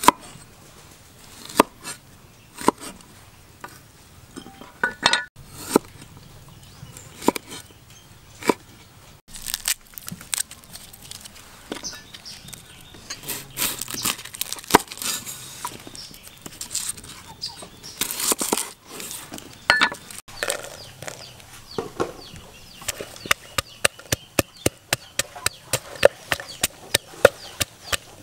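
Cleaver cutting food on a wooden chopping board: single cuts a second or two apart, a busier rustling stretch in the middle, then quick, even chops about three a second near the end.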